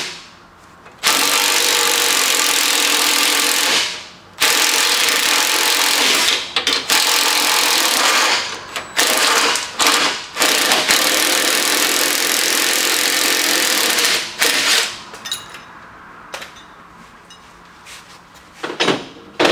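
Cordless impact driver running in several long bursts with short pauses as it backs out a rear suspension trailing-arm bolt. It stops about three quarters of the way through and is much quieter after that.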